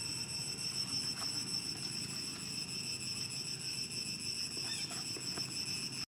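Steady, high-pitched chorus of insects droning on unchanging tones, over a faint low background hum.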